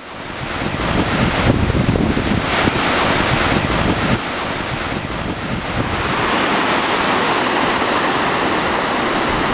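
Wind buffeting the microphone and the steady rush of the Hraunfossar waterfalls and river. The sound fades up at the start; the low gusty rumble is heavier in the first few seconds, then settles into an even rushing hiss.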